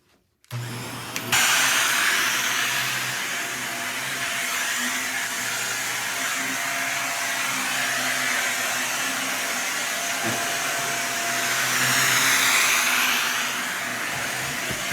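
Vacuum cleaner switched on about half a second in, its motor spinning up to full speed within a second, then running steadily while vacuuming, its sound swelling and shifting briefly near the end.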